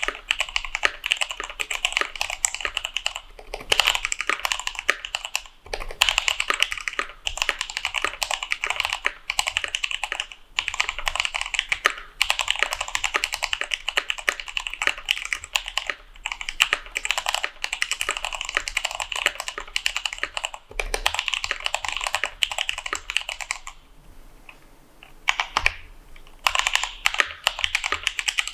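Fast continuous typing on a mechanical keyboard with spray-lubed Kailh Speed Copper tactile switches in a brass plate with case foam: a dense run of key clicks, with a short pause about three quarters of the way through.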